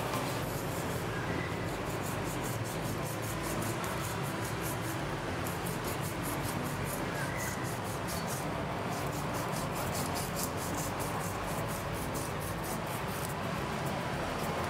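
Kitchen knife blade scraping the scales off a yellowtail barracuda's skin in quick, repeated rasping strokes.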